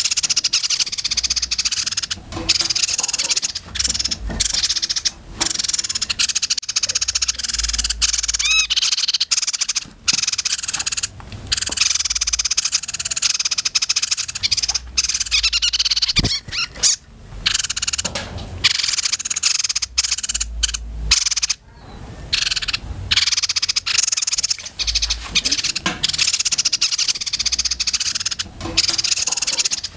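Several young caged songbirds calling in a rapid, buzzy, high-pitched chatter that runs almost without break, with only brief pauses.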